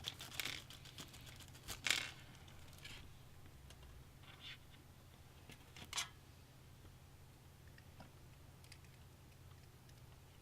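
Hands handling PC-build parts and packaging: short bursts of rustling and crinkling, the strongest about two seconds and six seconds in, then a few faint clicks over a low steady hum.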